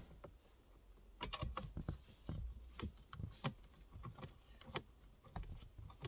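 Irregular light clicks and taps of small metal parts being handled by hand, as a 10mm nut is run onto the thread of an earth-lead stud.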